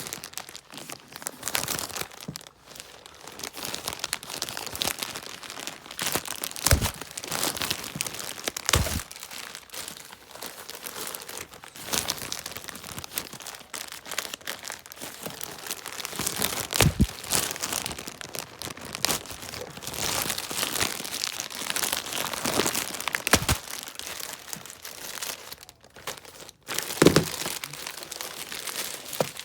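Shipping packaging being torn open and crinkled by hand: continuous crackling and tearing, with a few sharp knocks along the way.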